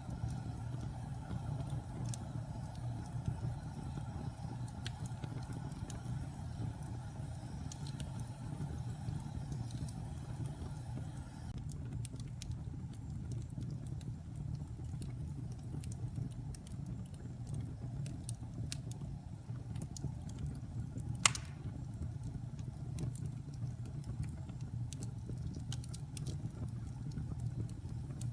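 Wood fire in a fireplace burning with a steady low rumble and scattered small crackles, and one louder sharp pop about three-quarters of the way through.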